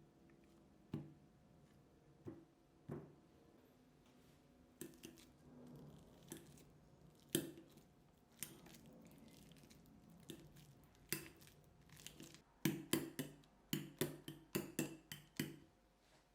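A kitchen utensil tapping and clinking against a mixing bowl, in scattered single knocks at first, then a quick run of about a dozen taps near the end.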